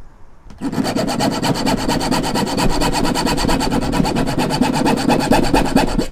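Junior hacksaw sawing back and forth through window edge trim in fast, even strokes, starting about half a second in and stopping near the end. The blade is not getting through the trim, which he puts down to a poor blade on the hacksaw.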